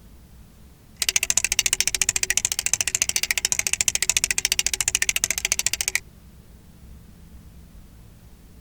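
Flip-dot display's electromagnetic dots flipping in a fast, even run of sharp clicks, well over ten a second. The clicking starts about a second in and stops about six seconds in.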